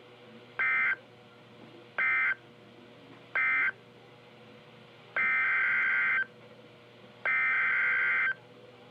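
NOAA Weather Radio EAS/SAME digital data tones, a harsh warbling buzz, played through a radio's speaker. First come three short end-of-message bursts about a second and a half apart, then, starting about five seconds in, two longer header bursts that begin a second alert straight away.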